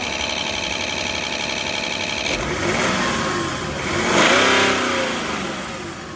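Car engine idling with a rapid, even ticking, then revved once: pitch rises to a peak about four seconds in and falls back to idle.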